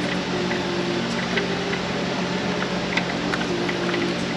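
Steady whir of a shop fan, its air catching the microphone, with a few faint light clicks as a spark plug socket on an extension is worked around inside the spark plug tube, trying to find the plug hole.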